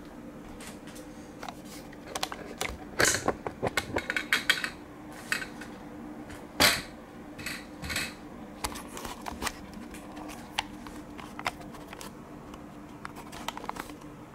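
Scattered clicks, taps and brief rustles of handling, loudest about three seconds in and again just past the middle, over a steady low hum.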